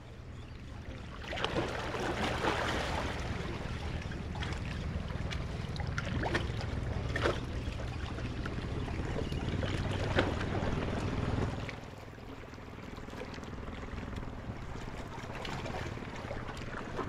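A boat's motor running steadily, with waves washing and wind on the microphone. The motor's low hum drops away about two thirds of the way in.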